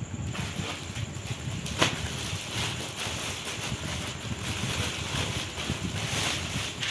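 Clear plastic packaging crinkling and rustling as a packed suit is handled, with one sharp crackle about two seconds in.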